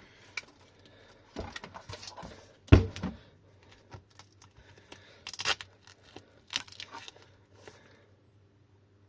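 Handling noises from an e-bike battery pack being taken apart: irregular rustling and clicks, with a loud knock about three seconds in.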